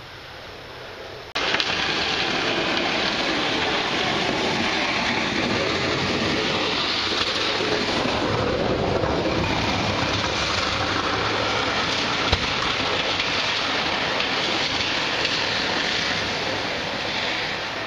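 Floodwater rushing over a flooded low-water road crossing and along a swollen creek: a loud, steady roar that starts abruptly about a second and a half in.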